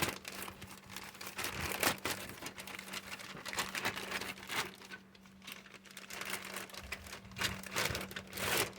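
Plastic bags of model-kit parts crinkling and rustling as they are handled and pulled out of the box, in irregular crackles that ease off briefly about halfway through.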